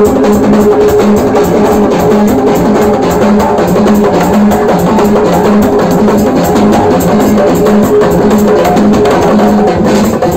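Live band music driven by fast hand-drumming on a wooden goblet-shaped hand drum, with a drum kit and sustained pitched instruments underneath in a steady rhythm.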